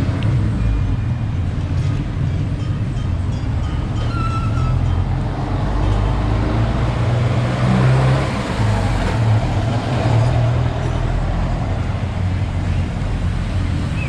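Road traffic: motor vehicle engines running steadily, with one vehicle swelling past about eight to ten seconds in.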